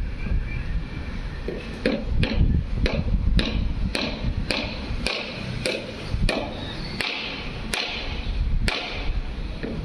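Hand hammer striking wooden centering planks: about a dozen sharp blows, roughly one every half second, beginning about two seconds in and stopping shortly before the end, over a low background rumble.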